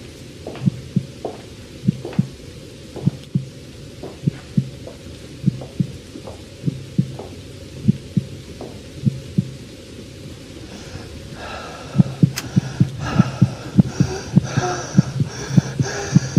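Heartbeat sound effect: slow, paired low thumps (lub-dub) that slow down and stop for a moment, then come back faster and louder about twelve seconds in. A high, wavering sound joins the quickened beat near the end.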